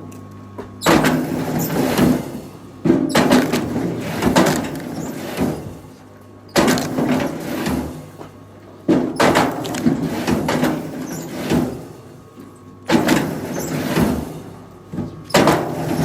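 Six heavy knocking and clattering impacts, each starting suddenly and dying away over a second or two, at irregular gaps of two to four seconds, over a steady low engine hum.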